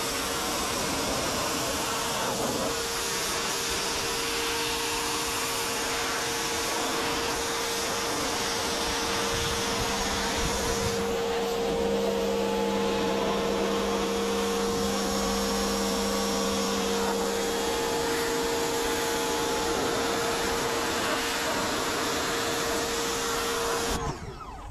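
Craftsman 1700 PSI pressure washer running, its motor whining steadily under the hiss of the spray from its gentlest nozzle. The spray stops for a moment near the end, then starts again.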